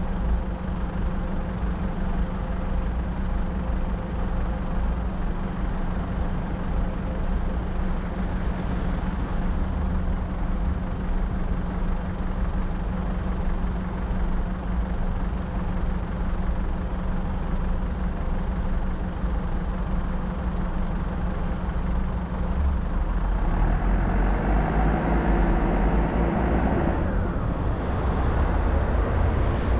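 Car engine and road noise, steady at first, then louder with the engine note climbing from about 23 seconds in as the car speeds up.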